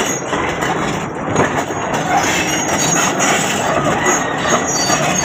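Heavy diesel machinery running steadily, a crawler bulldozer and a mobile crane, with metallic clanking mixed into the engine noise.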